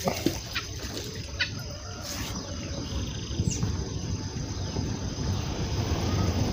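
Birds calling faintly over a low rumble of wind and handling on the microphone, with a short splash right at the start as the magnet on its rope drops into the pond.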